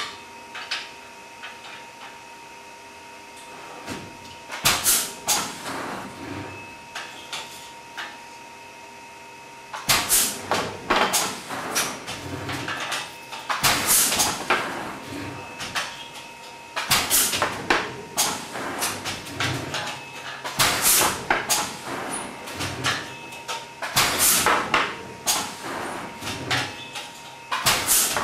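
Irregular wooden clacks and knocks from weaving at a TC2 digital jacquard loom: shuttles are picked up, set down and passed through the shed, and the beater bar is pulled against the cloth. The clatter is sparse at first and turns busy about a third of the way in, over a faint steady whine.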